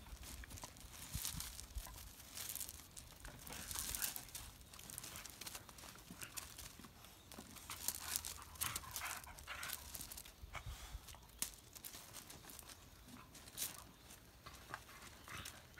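A dog's feet scuffling on loose gravel and a thick rope dragging and scraping over the stones as the dog tugs and wrestles with it: quick, irregular crunching and scraping.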